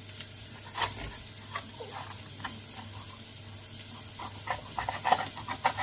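Knife cutting and scraping raw turkey thigh on a cutting board while cartilage is trimmed out, with scattered clicks and a quick run of short taps near the end. Under it a faint steady sizzle of onions frying gently in a pan.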